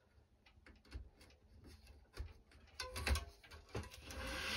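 Hands handling racket string on a stringing machine: scattered light clicks and taps as the string is woven across the string bed and against the frame, growing louder after about three seconds, then a rasping swish near the end as string is drawn through.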